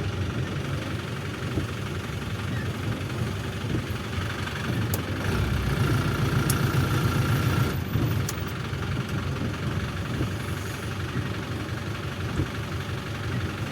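Volare A6 micro-bus's diesel engine running steadily while driving, a low rumble heard from inside the cabin.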